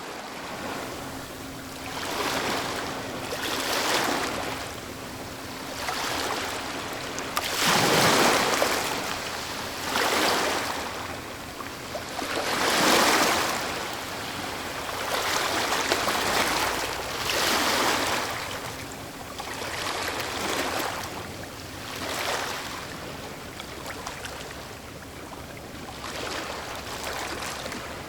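Medium waves breaking on the shore, recorded close up: a surge of rushing wash every couple of seconds, with two bigger breakers about eight and thirteen seconds in.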